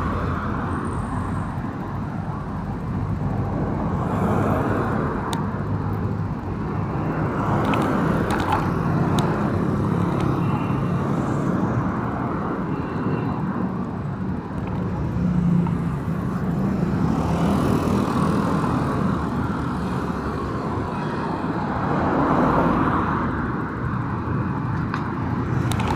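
Busy city road traffic: a steady rumble of engines and tyres from passing vehicles, swelling and easing as they go by.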